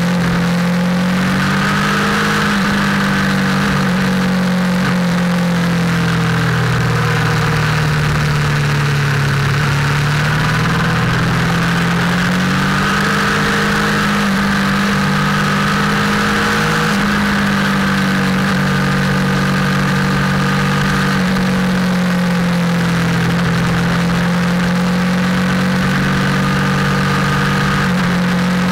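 Motorcycle engine running steadily under way, its pitch rising and falling gently with the throttle, under a constant rush of wind noise.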